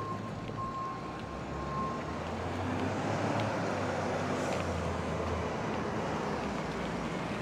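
City street traffic: a vehicle's engine running close by, its low hum growing louder in the middle. A reversing beeper sounds a few times and stops about two seconds in.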